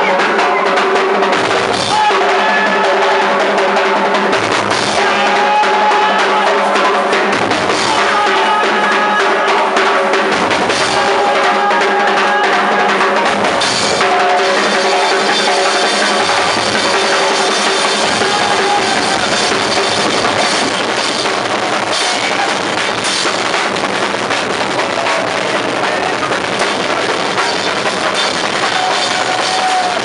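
A live percussion group drumming: several drums beaten with sticks and a cymbal, playing a loud, continuous rhythm without a break.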